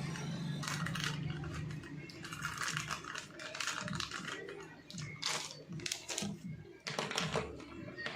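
Irregular clicks and clattering knocks of parts being handled, with a steady low hum in the first two seconds.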